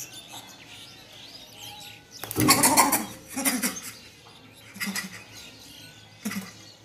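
Short animal cries, loudest about two and a half seconds in, followed by three shorter, fainter ones.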